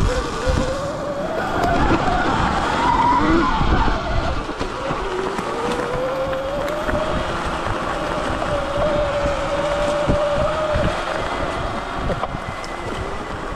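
Sur-Ron electric dirt bike's motor whining while riding. The whine climbs in pitch with speed about two to three seconds in, drops back, then holds fairly steady, over a constant rushing noise with occasional knocks.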